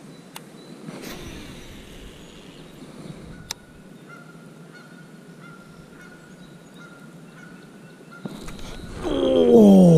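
Quiet outdoor background with a faint steady high tone, then about nine seconds in a man's loud excited whoop that falls in pitch and then wavers up and down as a bass hits the spinnerbait.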